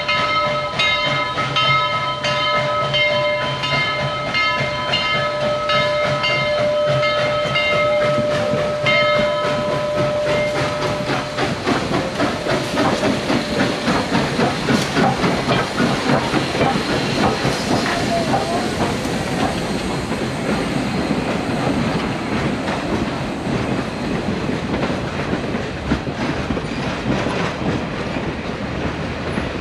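Southern Railway No. 4501, a 2-8-2 steam locomotive, sounds its chime whistle, held for about ten seconds. Then the locomotive and its passenger cars roll past close by, wheels clattering steadily over the rail joints.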